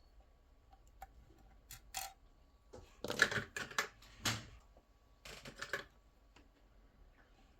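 Small objects being handled: a few light clicks, then two short spells of rattling and scraping, the louder one about three seconds in and a shorter one near the six-second mark.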